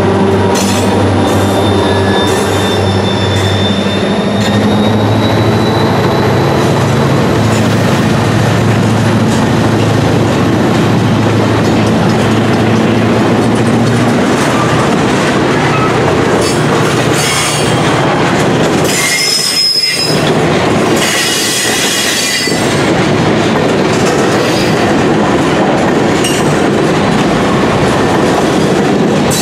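Long freight train passing close by: the diesel drone of the EMD locomotives, led away by the trailing SD40-2, fades over the first dozen or so seconds, leaving the steady rumble and clatter of loaded and empty freight cars rolling past. Bursts of high-pitched wheel squeal come in around twenty seconds in.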